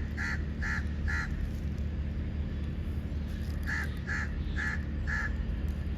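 A bird calling in two runs of four short calls, about two calls a second, the second run starting some three and a half seconds after the first, over a steady low hum.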